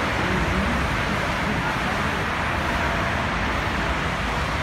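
BMW E39 540i V8, stroked to 4.6 litres, idling steadily.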